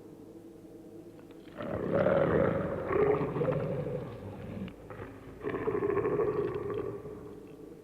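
A rough, low growling roar, heard twice: a long one starting about one and a half seconds in, and a shorter one about five and a half seconds in.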